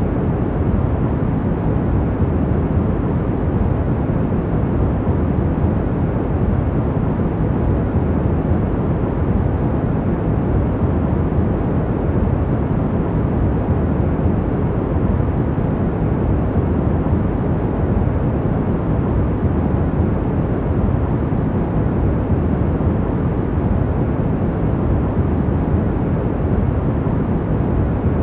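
Steady sleep-aid noise: a deep, even rushing rumble with little hiss on top, unchanging throughout.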